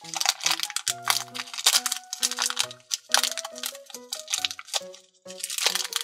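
Clear plastic wrapper crinkling and crackling as hands pull it open around a small rubber toy figure, over background music with a light melody of short notes.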